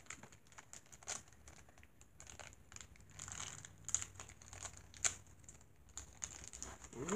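Faint crinkling and tearing of a small plastic toy package being opened by hand, in scattered short rustles and clicks.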